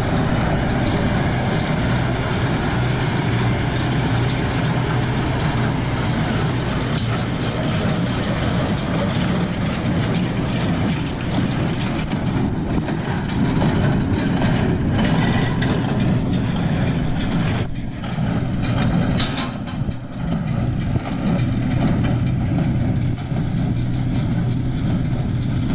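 Tractor engine running steadily while pulling a New Holland small square baler through hay windrows, the engine's low hum mixed with the baler's machinery noise.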